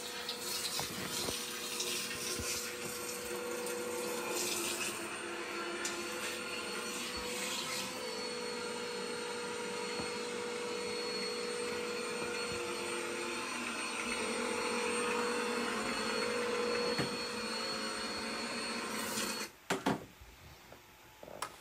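Upright vacuum cleaner running on a rug: a steady motor whine whose pitch shifts slightly as it is worked back and forth. The sound stops suddenly near the end, followed by a couple of clicks.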